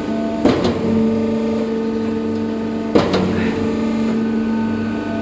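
Concrete pump running in normal pumping mode: a steady motor and hydraulic hum with fixed tones, broken twice by a sharp clunk about two and a half seconds apart as the pistons change stroke.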